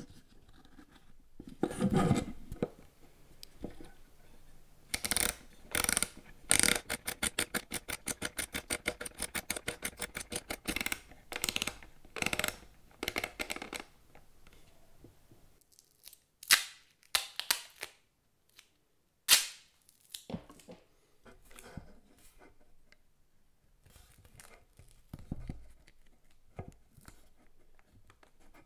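Kodak Baby Brownie box camera handled by hand: its film winding knob is turned in a long run of rapid clicks, about six a second, winding 127 roll film on to frame 1. Before and after come knocks of handling the camera body and a few single sharp clicks.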